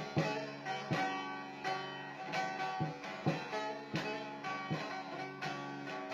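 Instrumental passage between sung lines of a Turkish song: a plucked string instrument playing sustained notes with a sharp stroke roughly every second, without the voice.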